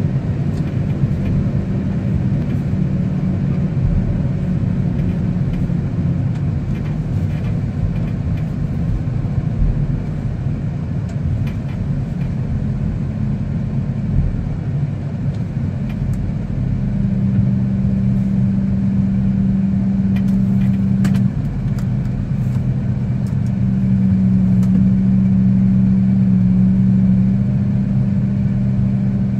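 Engine of a towbarless aircraft pushback tug running, heard from inside its cab as the tug moves up to the nose wheel. The steady low engine note firms up in stretches in the second half and is loudest a little past two-thirds through.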